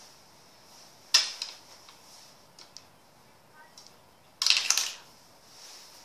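Miniature pool cue and small balls of a tabletop toy pool table clicking: one sharp click about a second in, a few light taps, then a quick cluster of clicks at about four and a half seconds.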